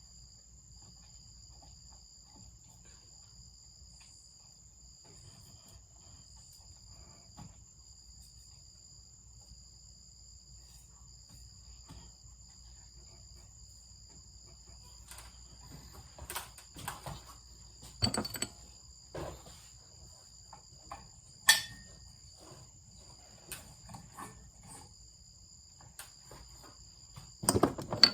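Steady high-pitched insect chirring. Over it, from about halfway in, come scattered knocks and clacks of things being handled, with one sharp knock about two-thirds in and a cluster of knocks near the end.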